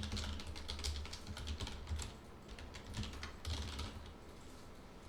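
Typing on a computer keyboard: a quick run of key clicks that thins out about four seconds in.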